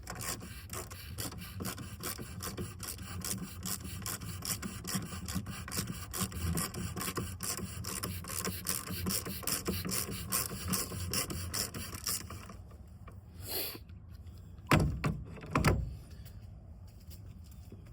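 Ratchet with a 32 mm socket clicking rapidly as the oil filter housing cap is loosened, for about twelve seconds. Then a brief rub and two heavy knocks a second apart, the loudest sounds.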